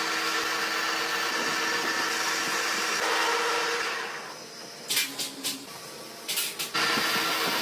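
A workshop machine motor running steadily with a faint hum. It falls away about four seconds in, a few sharp metallic knocks come between five and six and a half seconds, and then the machine runs again near the end.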